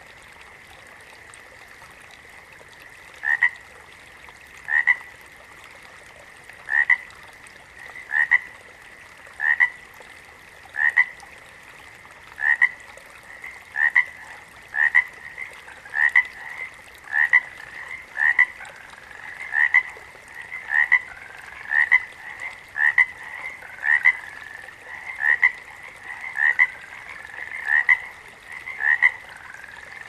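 Frogs calling: short, sharp call notes repeated about once every second or two, starting a few seconds in and coming faster toward the end. In the second half a second frog's rising calls overlap them, over a faint steady high tone.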